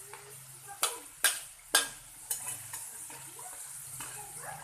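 Potatoes frying in hot oil, a steady sizzle, with a utensil stirring them and striking the pan four times in the first two and a half seconds.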